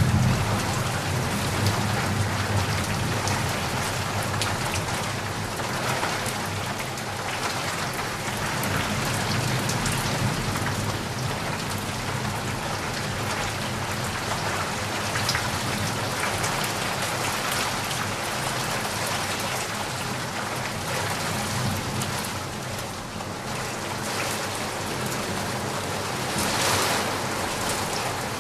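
Heavy rain falling steadily on surfaces, a dense even patter with a low rumble underneath and a brief swell near the end.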